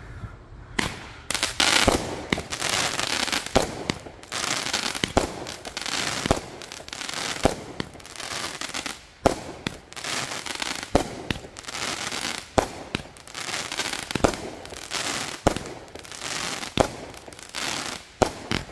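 Megaton 'The Proud and the Brave' 200-gram, 16-shot consumer firework cake firing shot after shot, starting about a second in. Sharp reports come roughly every second or so, each burst followed by crackling.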